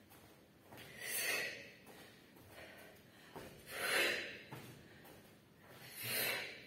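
A woman breathing out hard three times, about two and a half seconds apart: forceful exhales timed with her kicks, the breathing of exercise under effort.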